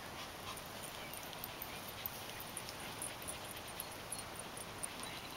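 Dogs playing, heard faintly over a steady background hiss, with scattered faint high ticks.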